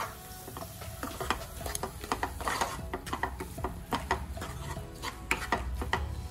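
Spatula stirring and scraping a thick mash of cooked beetroot and ground coconut paste around a nonstick frying pan, in irregular soft scrapes and taps. This is the coconut paste being mixed into the beetroot for pachadi.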